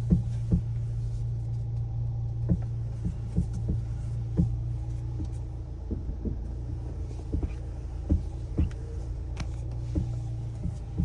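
Fiat Pulse Abarth's steering giving irregular clicks and knocks as the steering wheel is turned, over the steady hum of the idling engine. The owner feels the noise behind the wheel near the height adjustment and suspects the steering rack, a common Pulse complaint that may need lubrication or replacement.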